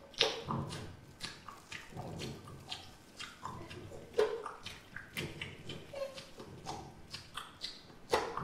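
Irregular wet smacks, clicks and short grunting mouth noises, like amplified chewing, with no steady beat.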